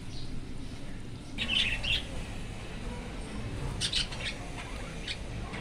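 Pet budgerigars chirping in their cage: a burst of high chirps about a second and a half in, then a few short scattered chirps.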